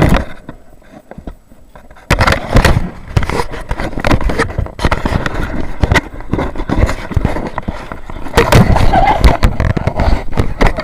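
KTM 200 motorcycle being ridden, its engine heard under heavy, gusty wind buffeting on the microphone. A loud burst right at the start, then quieter for about two seconds, then loud and rough again.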